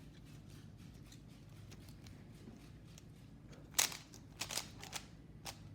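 Rubik's cube being turned by hand: faint plastic clicks and clacks as the layers rotate, with a few louder clacks past the middle.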